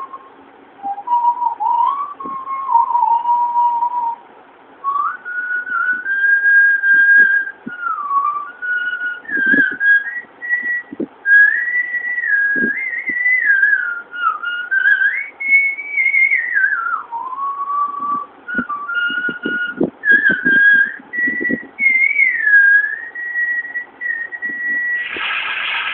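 Woman whistling a tune by mouth: a single clear tone that steps and slides between notes, some of them held for a second or more. A burst of noise cuts in about a second before the end.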